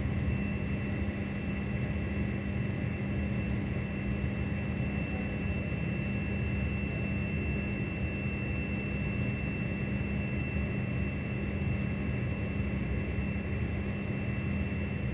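Steady low rumble of a city in a heavy downpour, with traffic on the elevated highway, and a faint steady high whine over it.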